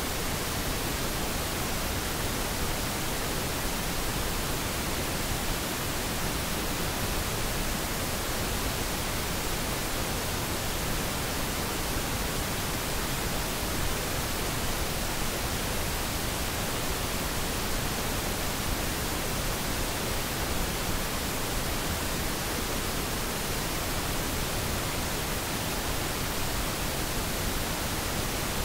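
Pink noise test signal: a steady, unchanging hiss with all frequencies mixed together.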